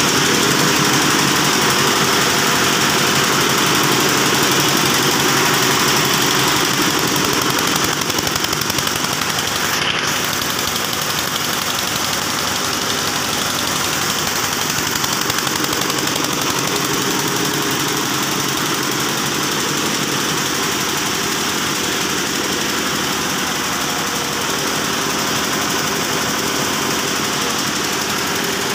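Yanmar TF105R single-cylinder diesel engine running steadily, driving a belt-driven twin-cylinder piston air compressor pump, with a fast even pulsing beat.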